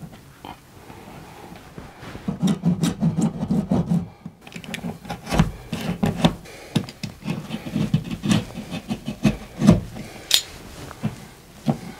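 Drywall being cut by hand with a small drywall saw: a run of short, rasping back-and-forth strokes, starting about two seconds in, as a rectangular opening is cut through the wall.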